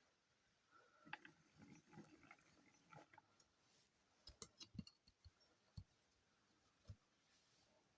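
Faint handling noise: a quick patter of small clicks and rustles, then several separate sharp clicks.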